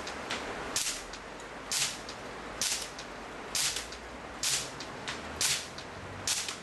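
Evanix Giant PCP air rifle firing in semi-auto mode: a steady string of sharp pneumatic shots, about one a second, seven in all, each with a short hissing crack.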